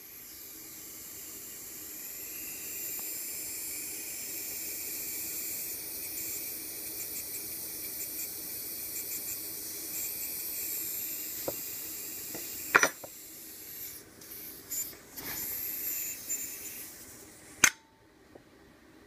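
ATS AT-85 paintball marker leaking gas out of its rear exhaust with a steady high hiss that builds over the first few seconds. A sharp click comes about 13 seconds in, the hiss then comes and goes, and it stops after a second sharp click near the end.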